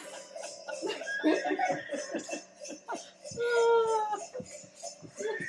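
People laughing and chuckling in short bursts, with one held, slightly falling note a little past three seconds in.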